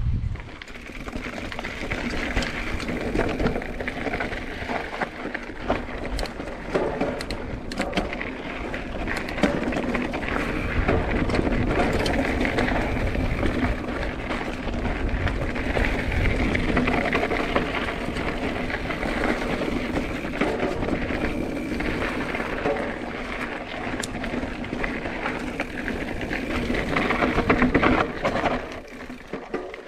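Mountain bike rolling over a rough dirt trail: steady tyre and drivetrain noise with many small knocks and rattles, easing off near the end.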